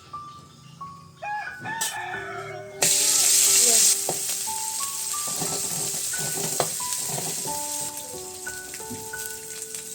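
A rooster crows in the background, then about three seconds in food hits hot oil with a sudden loud sizzle that settles into steady frying. Light background music plays throughout.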